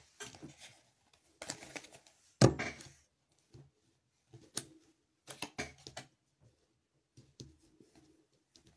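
Cards being handled and shuffled: a few short, irregular bursts of papery clicking and rustling, the loudest about two and a half seconds in.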